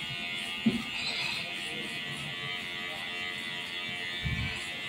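Electric hair clipper fitted with a number-one guard buzzing steadily as it cuts the hair at the back of the head. A short low knock comes about two-thirds of a second in, and another near the end.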